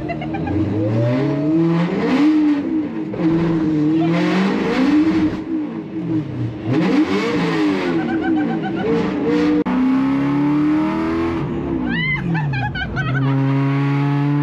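BMW E92 M3 race car's S65 V8 engine revving up and dropping back several times as it accelerates and shifts. It climbs slowly and falls once more, then settles to a steady drone near the end.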